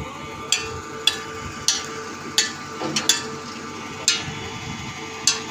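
Sharp knocks at irregular intervals, roughly one a second, over a steady hum.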